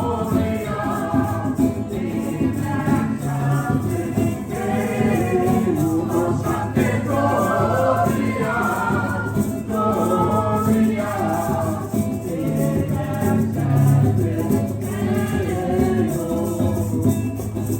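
A group of voices singing together to music, with maracas shaking along.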